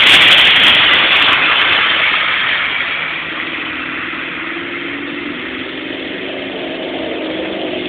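A loud rush of noise fades over the first three seconds or so, giving way to a truck engine running steadily at a low, even pitch.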